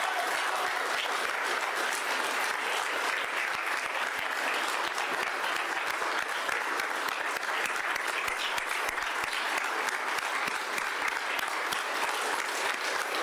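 Audience applauding: many people clapping steadily, a dense, unbroken patter of claps.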